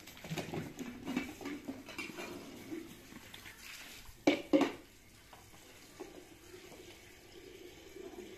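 Light clatter of containers being handled, with two sharp knocks about four seconds in, then water running steadily from the tap at the base of a galvanized water tank into a bowl.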